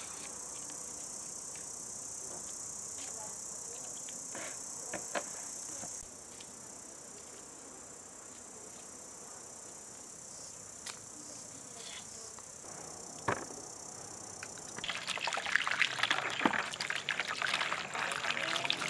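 Steady high chirring of insects, with a few sharp clicks of a knife as onions are peeled. About three-quarters of the way in, water splashes and sloshes as peeled onions are washed by hand in a plastic basin.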